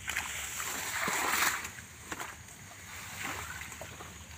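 Palm fronds thrown down into wet mud, a brief rustling splatter about a second in, followed by a few lighter rustles and squelches as they are pushed into place.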